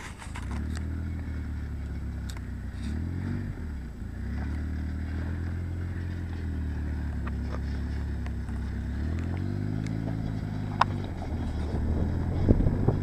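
Side-by-side UTV engine running, its revs swelling up and down several times as it climbs a steep, rocky trail, with a single sharp click near the end.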